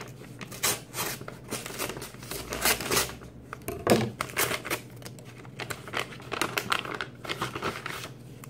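Brown kraft-paper mailer being opened and handled: irregular crinkling and tearing of paper, loudest about four seconds in.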